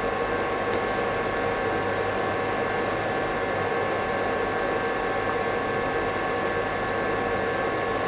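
Steady background hum and hiss with several fixed tones, unchanging throughout: workshop room tone with no distinct event.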